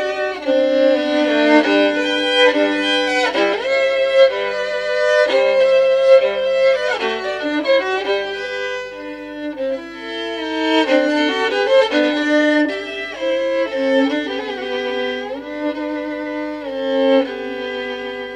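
The 1687 'Ex-Molitor' Stradivarius violin played with the bow: a melody of held notes with vibrato, moving from note to note, softer for a couple of seconds in the middle.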